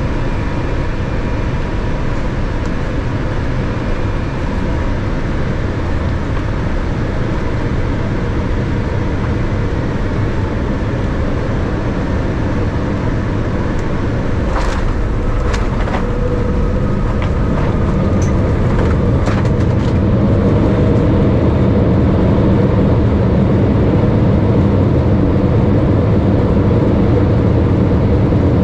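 Cabin noise of a Boeing 787-10 landing, with its Rolls-Royce Trent 1000 engines heard from a seat over the wing: a steady rumble of engine and airflow. About halfway through come a few sharp knocks as the main wheels touch down, and in the last third the rumble swells with a rising whine as the engines spool up for reverse thrust on the rollout.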